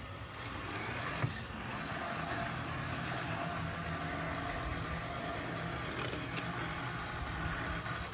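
Robotic lawn mower running across grass, its blade and drive motors giving a steady hum. One short click about a second in.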